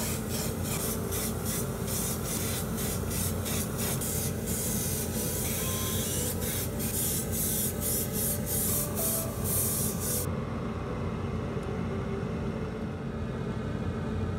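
Airbrush spraying in short repeated bursts, about two to three a second, with a longer continuous spray in the middle. The hiss cuts off about ten seconds in, leaving a low steady hum.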